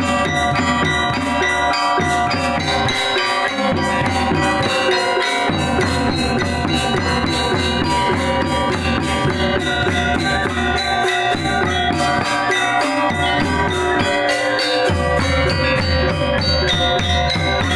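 Balinese gamelan gong kebyar playing: bronze metallophones ring over drums, with dense fast strokes. The low part drops out briefly a few times.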